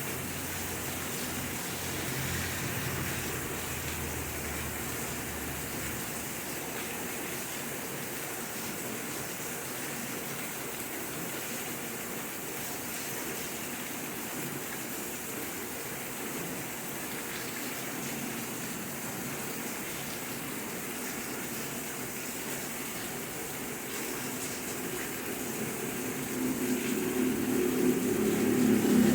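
Steady rain falling, an even hiss. Near the end a louder low rumble swells up beneath it.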